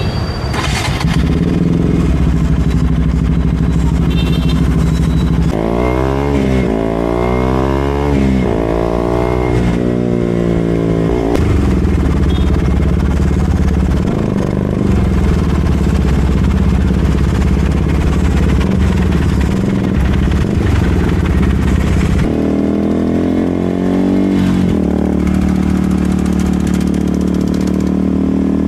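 KTM RC 200's single-cylinder engine through an SC Project aftermarket exhaust, running at low revs, with a series of quick rev blips from about six to eleven seconds in and another short run of revving about twenty-two seconds in.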